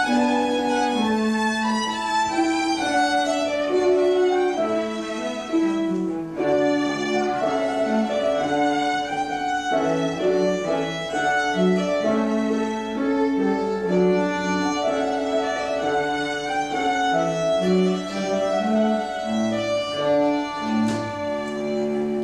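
Wedding processional music led by a violin, playing a continuous melody of held notes.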